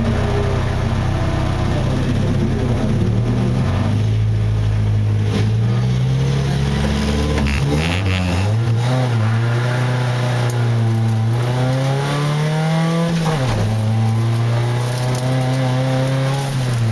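Race car engine heard from inside the cabin, held at steady revs, then launching about eight seconds in. It revs up with rising pitch, drops suddenly at an upshift about thirteen seconds in, and pulls steadily through the rest.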